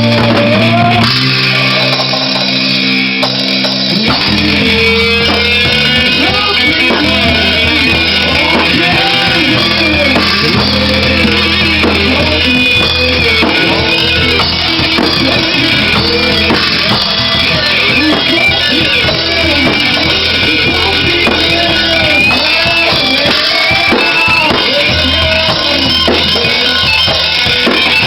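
Rock band playing live, with electric guitar, bass and drum kit. The bass and low end drop out briefly and return with the full band about four seconds in, with a bending melodic line on top.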